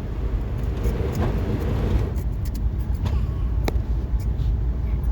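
Steady low road and engine rumble inside a moving car's cabin, with a few light sharp clicks in the second half.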